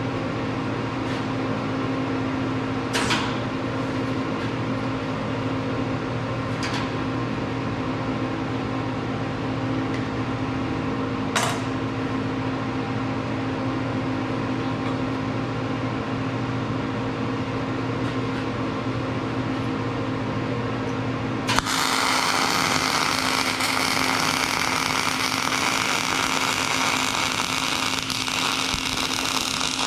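Gas-shielded welding machine humming steadily with a few faint clicks, then about two-thirds of the way through a loud, continuous welding-arc crackle starts abruptly.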